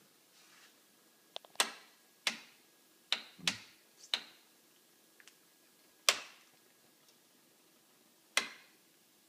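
Toggle switches on a metal prop control panel flicked by hand: a string of sharp clicks at uneven spacing, each with a short ringing tail.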